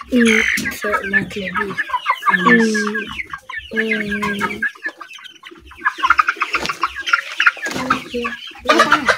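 Chickens clucking, several birds calling at once in quick, overlapping clucks, with a few longer, lower drawn-out calls among them.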